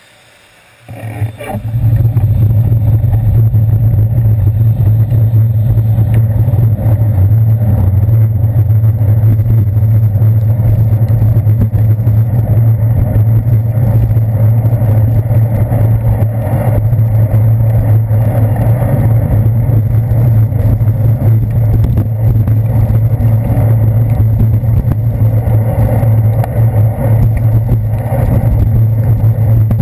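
Loud, steady low rumble and buffeting from a handlebar-mounted action camera in its waterproof housing while the bicycle rides over wet city pavement, starting after about a second of quiet.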